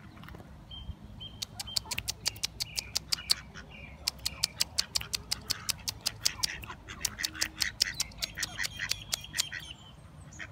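Pukeko and ducks calling with thin, high chirps, over a fast run of sharp clicks, several a second, that starts about a second and a half in and stops shortly before the end.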